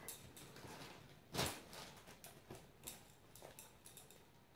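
Faint rustling of cloth and plastic wrapping as sarees are handled, with one louder brush about a second and a half in and softer ones later.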